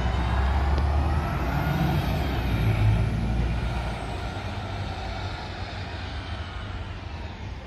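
City bus driving past, its engine rumble loud for the first few seconds, then fading as the bus pulls away.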